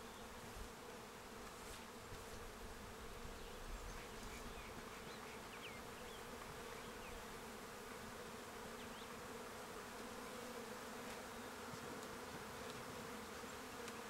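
Honey bees buzzing around their hive, a steady hum that grows a little louder toward the end.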